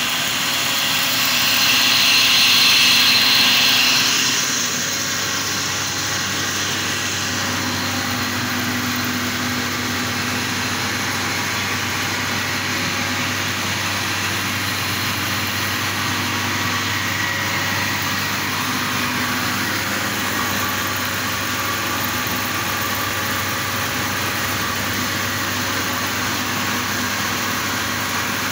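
Atta chakki flour mill running, belt-driven by its 15 hp electric motor: a steady mechanical whir with a low hum underneath. A louder, higher hiss rides over it for the first four seconds.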